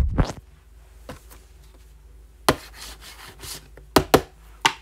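Hands handling a sealed cardboard trading-card box on a table mat. There is a loud bump of handling at the start, then rubbing and a few sharp knocks on the box about two and a half seconds in and near the end.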